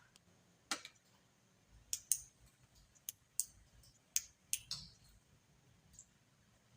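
A handful of faint, sharp clicks and ticks at irregular intervals, about eight in all, over a quiet background.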